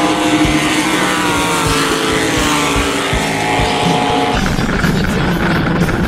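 Racing bulldog boat engines running hard at high revs, their pitch falling through the middle as a boat passes. About four seconds in the sound changes abruptly to a steady, lower engine drone with rushing noise, heard from aboard a racing boat.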